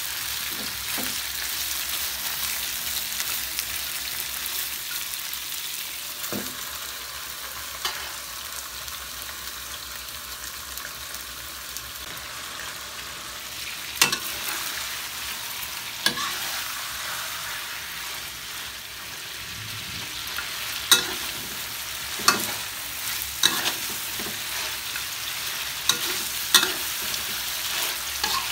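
Pieces of duck sizzling in oil in a wok while being stirred with a metal spatula. Sharp clinks of the spatula striking the wok come now and then, more often in the second half.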